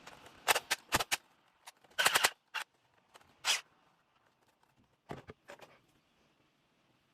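Handling noise from unboxing and fitting together a plastic toy foam-dart blaster: irregular clicks, snaps and short rustles of plastic parts and packaging, a cluster about two seconds in and scattered ones after.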